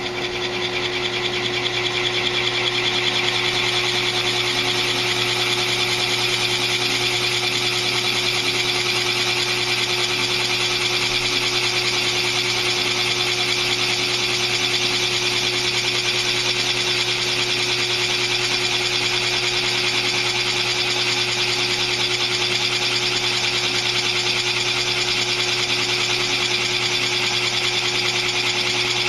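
Drill press running steadily as its bit cuts into a clamped wooden block: a constant motor hum under the hiss of wood being bored.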